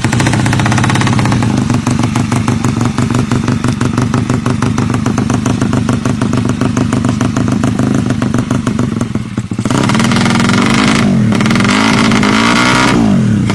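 Motorcycle engine running with a dense, rapid rattling clatter, then revved up and down several times over the last few seconds. The clatter is the sign of a broken-down ('ambrol') engine with failed internals.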